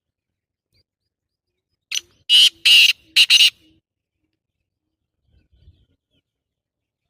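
Black francolin calling once: a loud, harsh phrase of five quick notes about two seconds in, a short first note followed by longer grating ones, lasting under two seconds.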